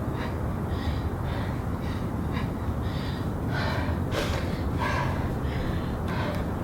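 A woman breathing hard in quick, repeated gasps, winded from a high-intensity bodyweight interval workout.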